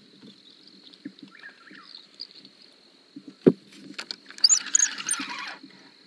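Steady high-pitched trill of night insects. About three and a half seconds in comes a single knock, then about a second of loud rattling and clicking from handling the fishing rod and reel while a fish is on the line.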